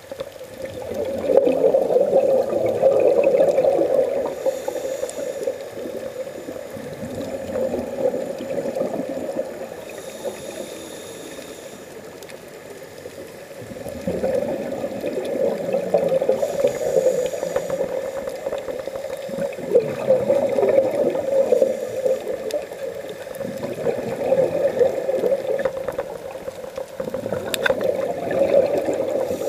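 Underwater bubbling from scuba divers' regulators: exhaled bubbles gurgle in swells every few seconds, with a fainter hiss between them.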